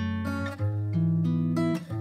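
Background music: acoustic guitar playing held, ringing chords that change twice.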